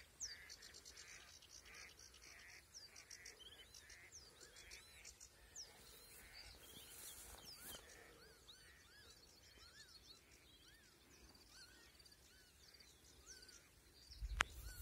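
Faint birdsong over a wet meadow: several birds giving short rising and falling chirps and whistles, with a rapid regular series of notes during the first few seconds. Near the end comes a sharp click followed by a low rumble.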